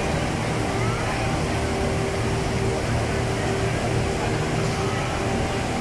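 Steady rushing of a large indoor waterfall pouring into its basin, with a steady low hum beneath it.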